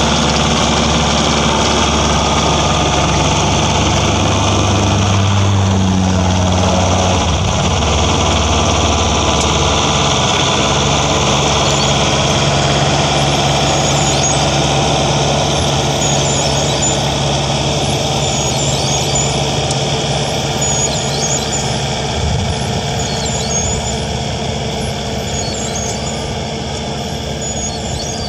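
Farm tractor engine running under load while driving a rotary tiller and seed drill through soil. It grows gradually fainter over the second half as the rig moves away.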